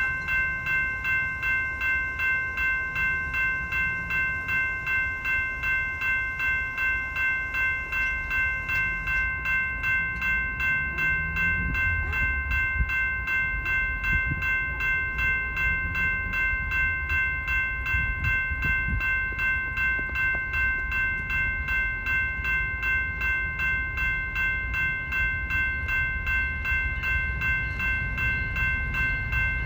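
Railroad crossing's electronic warning bell ringing steadily, about two strokes a second. A low rumble builds under it from about halfway through as a train approaches the crossing.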